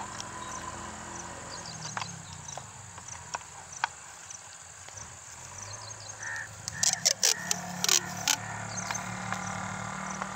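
Outdoor ambience with a low steady hum and faint chirps, broken by a quick run of sharp clicks and knocks about seven to eight seconds in.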